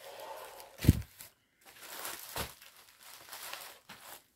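Plastic wrapping of a diamond painting kit rustling and crinkling as it is handled and opened, with a sharp knock about a second in and a softer one a second and a half later.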